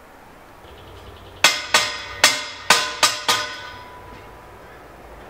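Six sharp metallic clanks, each ringing on briefly with several tones, in an uneven rhythm over about two seconds, starting about one and a half seconds in.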